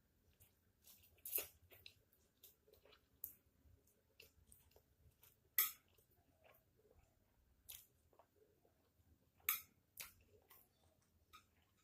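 A person eating fried instant noodles close to the microphone: faint wet mouth clicks and smacks of chewing, with a few louder sharp clicks scattered through.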